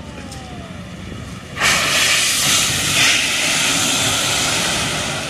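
Shannon-class lifeboat beaching at speed: its hull grinds up the shingle with a loud, sustained hiss of scraping and spraying pebbles that comes in suddenly about a second and a half in and fades near the end.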